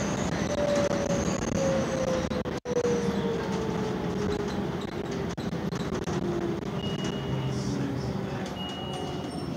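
Inside a city transit bus under way: a steady drivetrain and road rumble, with a whine that falls steadily in pitch over about six seconds. Two faint, brief high tones come near the end.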